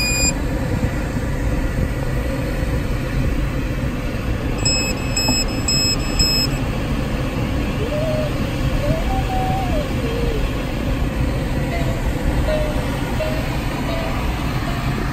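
Steady rush of air streaming over the Puchacz glider's cockpit and canopy in gliding flight. About five seconds in, four short, evenly spaced electronic beeps sound, with a faint wavering tone in the second half.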